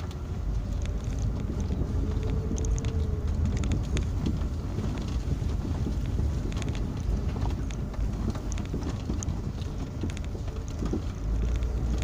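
2001 Hyundai Santa Fe 4x4 driving slowly over a rutted grassy dirt track, heard from inside the cabin: a steady low rumble of engine and tyres with scattered knocks and clicks throughout.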